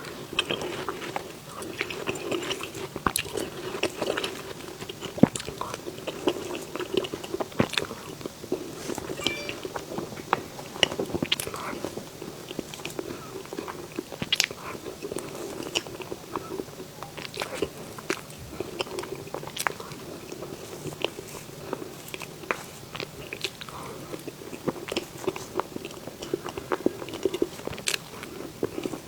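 Close-miked eating of a dessert: steady chewing and biting, with many small sharp wet mouth clicks throughout.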